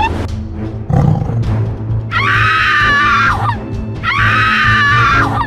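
Background music with a steady beat, with two long, loud cartoon animal cries or screams laid over it, each about a second and a half long, starting about two seconds in and again about four seconds in, their pitch dropping at the end.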